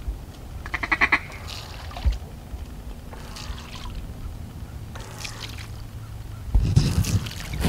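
Duck quacking: a rapid chattering run of quacks about a second in, a few fainter quacks, then a louder burst of calling near the end.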